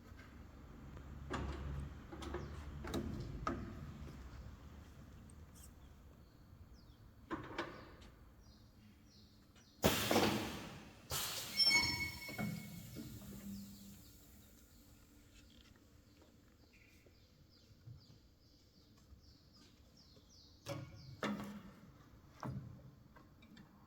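Urban AKS 3900 double-head PVC welding machine at work: scattered mechanical clunks and knocks, with a loud hissing burst about ten seconds in, then a clatter with a brief ringing squeal, and more knocks near the end.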